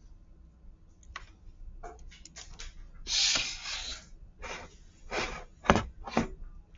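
A run of rustling and rubbing noises, the longest and loudest about three seconds in, followed by several shorter rustles, two of them with a soft thud, near the end.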